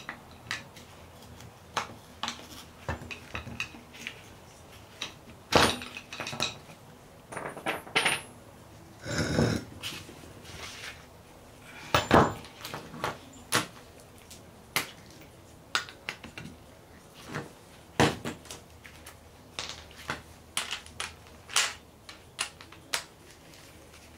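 Metal tools and steel suspension parts clinking and knocking irregularly as a wrench works on a removed strut and the strut assemblies are handled and set down on concrete, with a few short, denser rattles of metal on metal.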